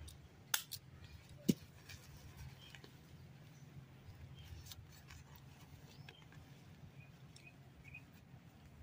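Disposable diaper being handled and fastened on a baby monkey: a few sharp clicks and snaps in the first second and a half, the loudest at about a second and a half, then soft small ticks of handling. Faint short high chirps come now and then over a steady low hum.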